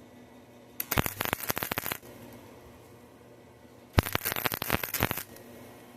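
Electric arc welder spot welding: two short bursts of arc crackle, each about a second long, with the welder turned down to its minimum setting because the thin metal is burning through. A faint steady hum can be heard between the bursts.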